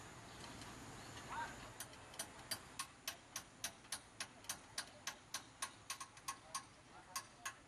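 Faint, regular clicking, about three sharp ticks a second, that starts a little under two seconds in and stops near the end.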